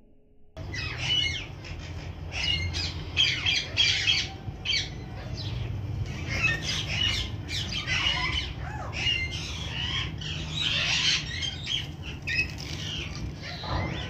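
Green-cheeked conures squawking over and over, with short harsh calls overlapping, over a low steady rumble. The calls start suddenly about half a second in.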